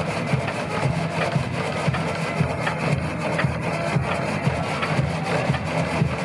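Old horizontal log sawmill cutting lengthwise through a log, the blade rasping steadily through the wood with a low, regular pulsing underneath.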